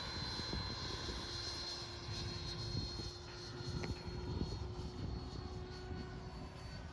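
Freewing Stinger 90 electric ducted-fan RC jet in flight, its fan giving a steady high whine, with wind rumbling on the microphone.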